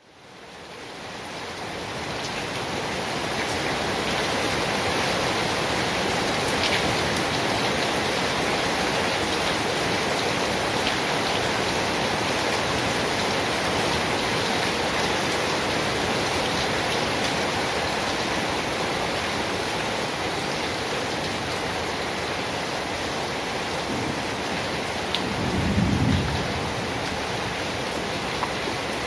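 Steady, heavy rain falling, fading in over the first few seconds. A short low rumble swells near the end.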